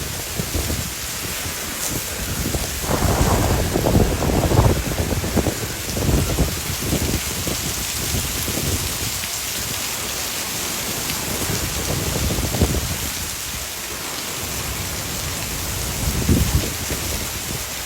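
Heavy rain hissing steadily in a severe thunderstorm, with low gusts buffeting the microphone, strongest a few seconds in and again near the end.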